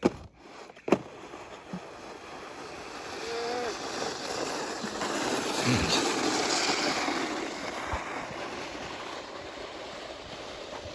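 Snowboard sliding over snow, a scraping hiss that builds to its loudest in the middle and then eases off. Two sharp knocks right at the start.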